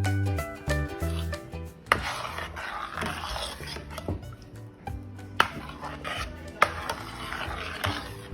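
Background music, joined about two seconds in by steady scraping and rubbing from kitchen food preparation, with a few sharp knocks against a dish.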